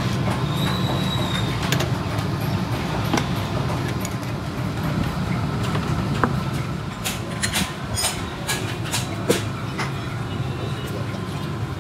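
Scattered metallic clinks and clacks as a steel battery-grid casting mould is opened and handled, over a steady low mechanical rumble.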